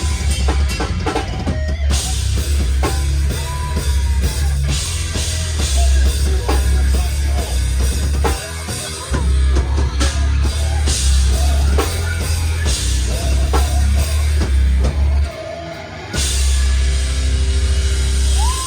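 Hardcore band playing live: a drum kit and heavy, dense guitar and bass. The low end drops out briefly twice.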